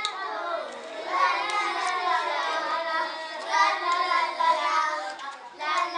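Young children's voices singing together, with long sliding notes.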